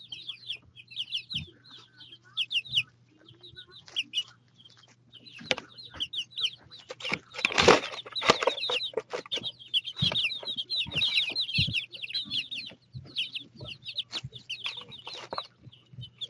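Baby chickens peeping constantly in rapid strings of short, high, falling peeps, with scratching and bumping close to the microphone as the chicks move through the wood shavings, loudest about halfway through. A faint low hum runs underneath.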